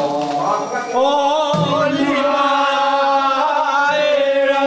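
Men's voices chanting a traditional song, holding long notes that waver.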